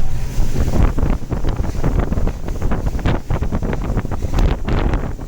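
Wind buffeting the microphone on a moving boat: irregular gusty thumps over a steady low rumble.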